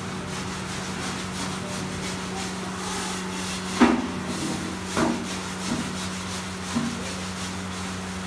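Kitchen handling sounds as spice powder is added to a plastic bowl of raw chicken: light scraping and rustling over a steady hum, with a few short knocks, the two loudest about four and five seconds in.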